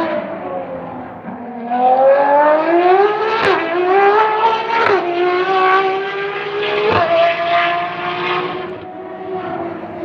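Ferrari FXX K's V12 engine accelerating hard past on track. Its note climbs through the gears, with quick upshifts about three and a half, five and seven seconds in, then holds steady and eases off slightly near the end.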